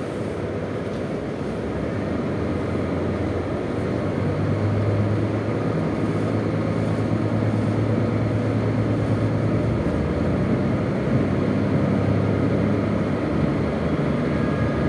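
KiHa 201 series diesel railcar running under power, heard from inside the car: a steady low engine drone mixed with running noise, growing louder over the first few seconds as the train picks up speed.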